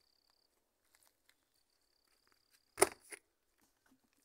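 A single sharp knock a little under three seconds in, followed by a fainter one, against otherwise quiet background with a faint high steady tone.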